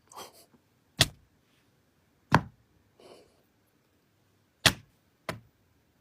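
A series of sharp hits: four loud, short strikes, about a second in, just past two seconds, and two close together near the end, with fainter softer noises between them.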